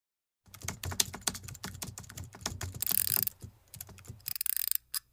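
Typing on a computer keyboard: a fast, irregular run of key clicks starting about half a second in and lasting about four seconds.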